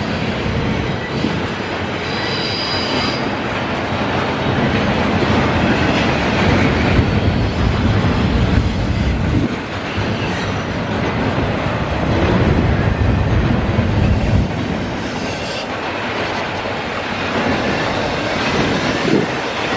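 Double-stack intermodal well cars of a freight train rolling past at close range: a steady rumble of steel wheels on rail, with a brief high wheel squeal about two seconds in.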